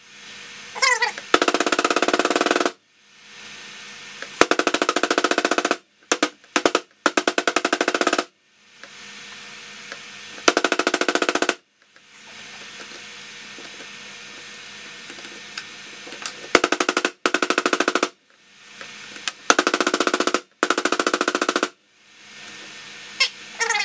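A clay-filled ceramic 3D printer extruder barrel pounded down on a table in quick repeated strokes, packing the clay, in bursts of rapid knocking that each last a second or so.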